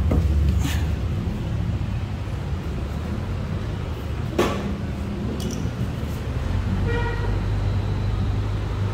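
Steady low rumble of an idling car engine, with a couple of light knocks and a short car-horn toot about seven seconds in.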